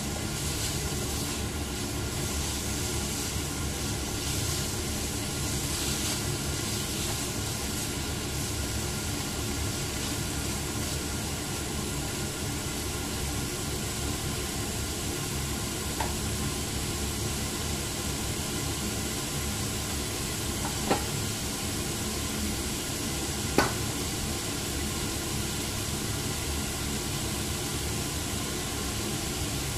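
Meat strips, onion and garlic sizzling steadily in hot oil in a nonstick frying pan, with a spatula scraping and stirring through them in the first few seconds. Two sharp pops stand out a few seconds apart later on.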